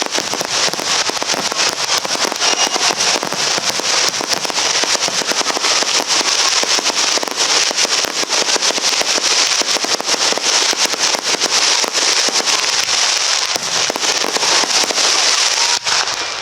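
Aerial fireworks crackling: a dense, continuous hail of rapid sharp pops and crackles, loud and steady throughout.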